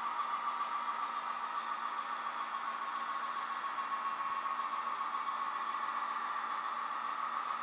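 Onboard sound of a Broadway Limited Paragon 2 model EMD SW7 switcher: a simulated diesel engine running steadily, heard as a thin drone with little bass.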